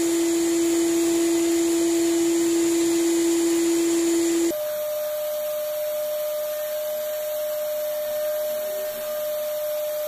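Stainless steel wet/dry canister vacuum cleaner running steadily with a whining hum as its hose sucks over a carpet. About four and a half seconds in, the whine jumps abruptly to a higher pitch and the sound gets a little quieter.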